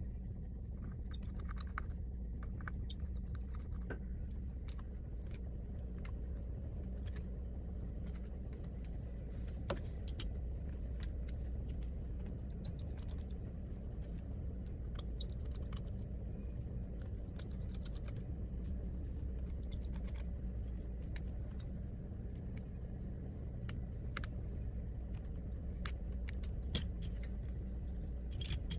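Small irregular clicks and light metallic taps of hand tools working on a smartphone during a screen and battery replacement, over a steady low hum.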